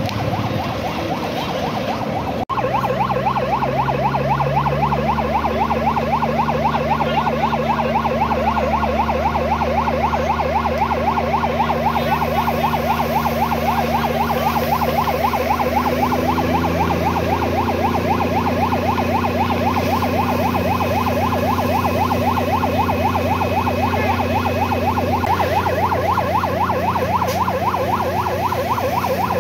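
Emergency-vehicle siren sounding a rapid continuous warble, over a vehicle engine running steadily. The siren starts just after a brief break a couple of seconds in.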